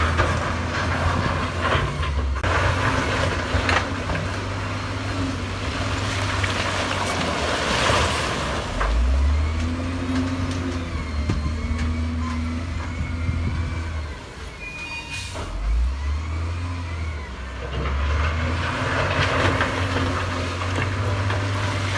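Heavy diesel earthmoving machinery working, the engine note surging and falling repeatedly under load. A brief high tone sounds about fifteen seconds in.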